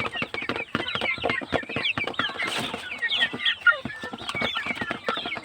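A flock of young Philippine native chickens: many overlapping high peeps and clucks, with scattered small clicks and taps among them.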